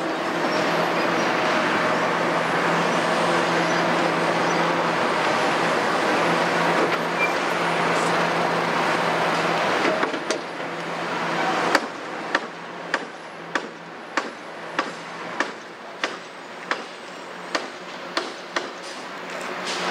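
Heavy diesel engine noise from a Kobelco 350 hydraulic excavator at work and a concrete mixer truck pulling away, steady at first and dropping about halfway through. Then a run of sharp, evenly spaced knocks, about one and a half a second, sounds over the quieter engine.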